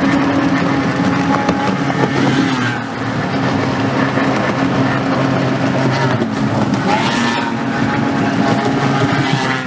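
Outboard motors on racing boats running steadily at speed, a drone with a steady pitch throughout. These are newer outboards, which by their sound are four-strokes.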